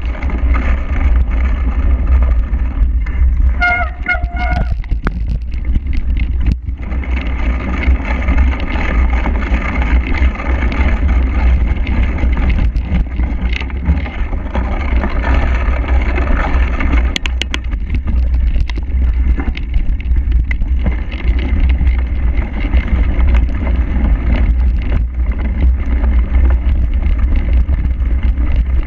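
Heavy wind buffeting on the microphone of a camera riding on a cyclocross bike across rough, wet grass, with scattered knocks and rattles from the bike on the bumpy ground.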